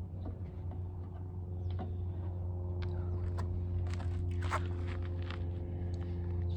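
A steady low hum with scattered light clicks and scraping or rustling handling noises, the busiest stretch about four seconds in.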